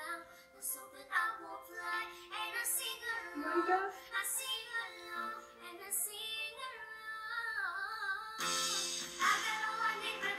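Young boys singing a pop song with instrumental backing; the sound grows much fuller about eight seconds in.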